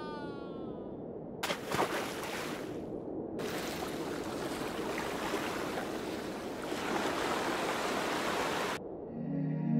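River water washing and splashing, a steady rush that starts about a second and a half in with a couple of sharper splashes, breaks briefly, then runs on and cuts off suddenly near the end.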